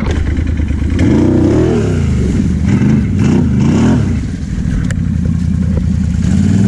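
Can-Am Renegade X mr 1000R ATV's V-twin engine revving hard in quick bursts. Its pitch rises and falls several times, drops briefly around four seconds in, then climbs again. A sharp knock comes about five seconds in.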